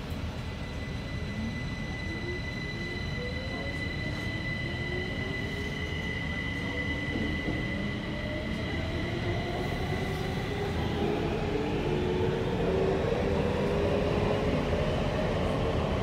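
Kaohsiung MRT electric train heard from inside the car, picking up speed: the traction motors whine in several tones that rise steadily in pitch and level off about two-thirds of the way through, over a steady rumble of wheels on rail. A thin high steady tone sounds until about the same point, and the overall sound grows louder.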